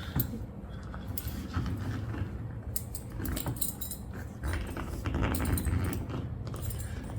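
Small metal shoe buckle jingling and clinking, with the strap rustling, as a tight ankle strap is worked through and fastened.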